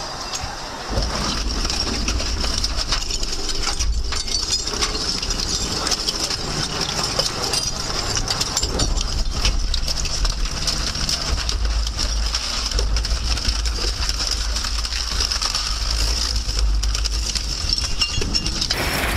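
Twin-shaft shredder shredding bicycles: a steady low rumble from the drive comes in about a second in, with metal frames, wheels and spokes crunching and snapping between the cutter discs.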